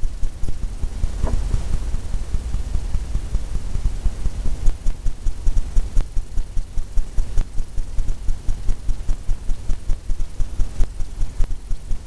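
Oil paint being mixed on a palette: a low rubbing rumble that pulses about three times a second with the strokes, with faint scraping ticks over it.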